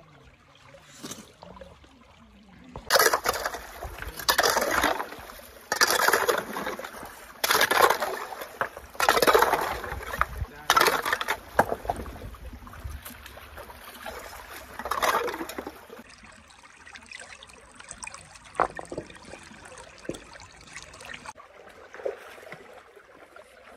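Shallow stream water splashing and sloshing in a string of loud bursts, about one every second or so from about three seconds in until about eleven seconds, with one more a few seconds later. Quieter trickling follows.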